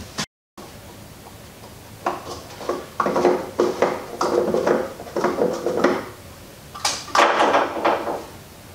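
Handling noise from a skid-steer's fuel cap and a stainless-steel wire hook being fitted: a run of short scraping, clattering strokes, with the loudest clatter about seven seconds in.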